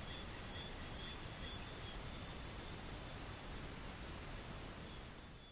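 Insects calling: a short high chirp repeating evenly about twice a second over a steady, very high-pitched insect hiss, fading out near the end.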